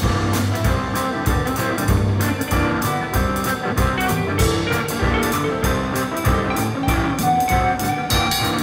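Calypso music played by a band, with sustained instrument notes over a steady, evenly spaced drum beat.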